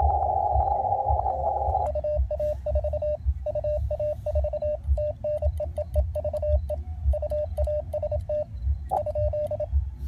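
Morse code keyed on a CW paddle: the transceiver's steady mid-pitched sidetone beeping in dots and dashes for about eight seconds, starting about two seconds in. Before it, the receiver's band hiss, which cuts out while sending. A low rumble runs underneath.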